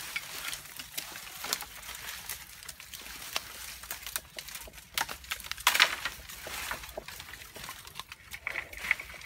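Irregular rustling and crackling of bamboo leaves and stems being brushed and shifted, with a louder cluster of snaps about six seconds in.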